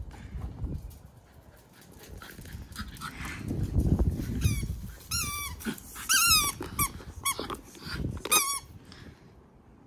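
A squeaky spiky rubber ball squeaking in a quick series of short, high, wavering squeaks as a Westie bites at it. The squeaks follow a low rumble of movement.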